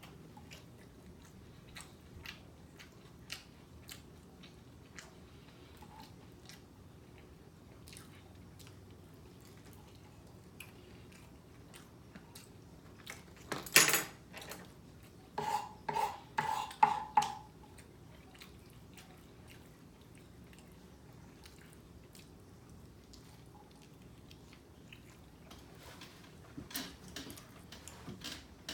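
A person eating tacos, with faint scattered mouth clicks and chewing. About halfway through there is one loud crunch, followed shortly by a quick run of four louder knocks with a slight ring.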